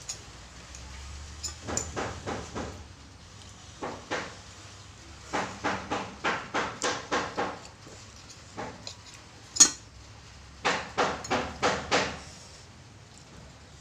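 Eating sounds: runs of quick chewing on mouthfuls of instant noodles, about three a second, and a metal spoon and fork clinking against a ceramic plate, with one sharp, loud clink about ten seconds in.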